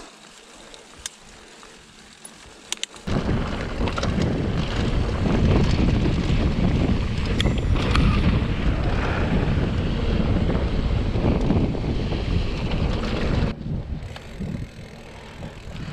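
Wind rushing over the helmet-camera microphone and mountain-bike tyres rumbling on loose gravel during a fast fire-road descent. It starts suddenly about three seconds in and drops away near the end. Before it, quieter trail riding with a few sharp clicks.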